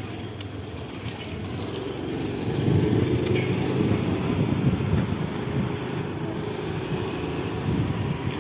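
Ride noise on a moving two-wheeler: wind rumbling over the phone's microphone together with the engine and road. It gets louder about two seconds in.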